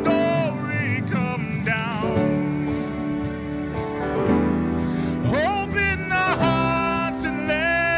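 Live worship band playing a contemporary worship song, with electric guitar and electric bass under sung lead vocals.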